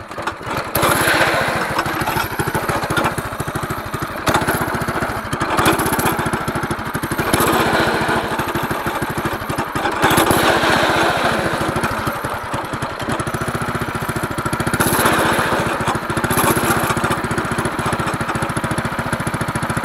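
Predator 212 single-cylinder four-stroke engine on a drift trike catching in the first second, then running with a fast, even beat, swelling louder several times.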